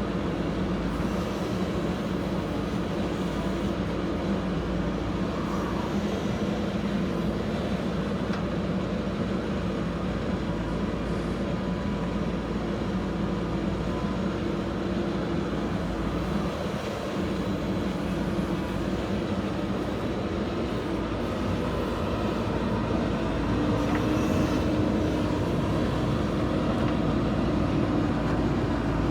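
Diesel engine of a JCB 3DX backhoe loader running steadily while it digs and loads soil, getting a little louder with a higher note about three-quarters of the way through as the engine works harder.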